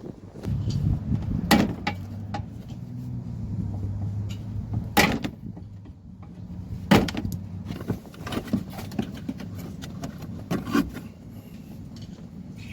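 Sharp clicks and knocks of plastic bumper retaining clips and trim being pried loose on an SUV's front bumper, with three louder snaps spread through and a low hum in the first half.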